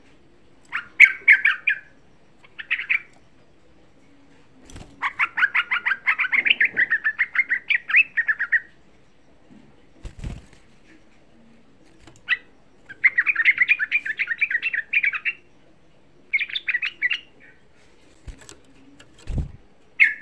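Yellow-vented bulbul singing: bursts of rapid, bubbling chatter with pauses between them, the longest lasting about four seconds. A few dull knocks are scattered through it, one near the middle.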